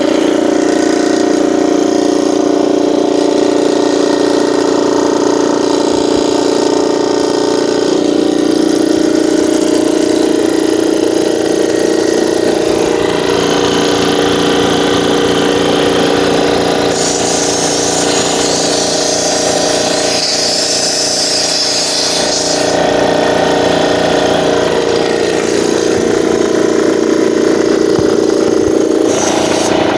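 PowerStar PS-47L 2HP direct-coupled piston air compressor running steadily, its motor and pump humming with a fast pulsing beat as it pumps up the 24-litre tank. Its tone shifts slightly a couple of times, and a high hiss joins in for about five seconds in the middle.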